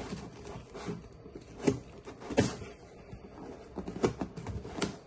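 A blunt screwdriver-headed tool pushed and dragged along the taped seams of a cardboard box, scraping and rustling the cardboard, with several sharp knocks as it jabs into the box.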